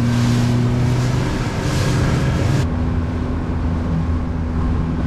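Motorboat running at speed: a steady engine drone under a loud rush of wind and water spray. About halfway through, the rushing hiss drops away suddenly, leaving the steady engine hum.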